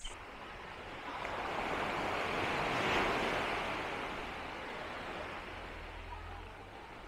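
Gentle surf on a sandy beach: a small wave breaks and washes up the shore, swelling to its loudest about three seconds in and then slowly fading.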